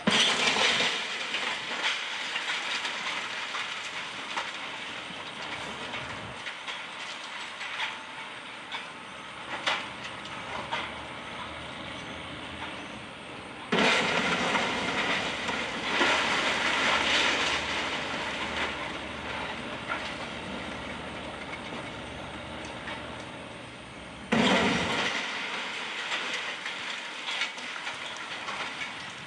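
Wrecking ball smashing into a brick building's wall three times, near the start, about 14 seconds in and about 24 seconds in. Each strike sets off several seconds of bricks and rubble clattering and rumbling down, fading away.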